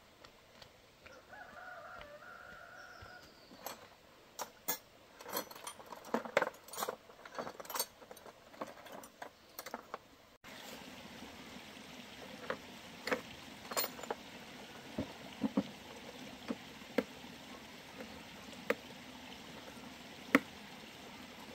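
Scattered light clicks and metallic taps, as of hand tools and small parts being handled during repair work, thickest in the first half. The background hiss steps up suddenly about ten seconds in.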